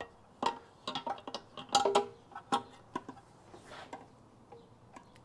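Metal motorcycle parts and hand tools being handled during assembly: a string of irregular clicks and knocks, some with a short metallic ring, loudest about two seconds in.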